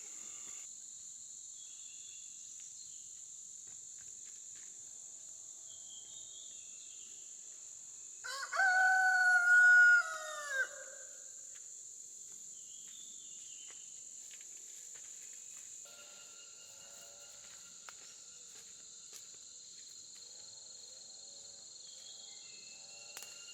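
A rooster crows once, a single long call about a third of the way in that falls away at its end. Insects keep up a steady high buzz throughout.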